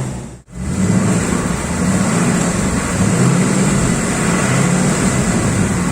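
Ford Mustang Mach 1's 5.0-litre V8 running steadily through its exhaust. The sound cuts out briefly about half a second in.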